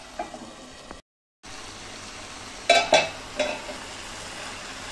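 Green chillies frying in a yogurt-spice masala in a pan with a steady sizzle. There are three sharp clinks of a utensil against the pan a little past halfway, and a short silent gap about a second in.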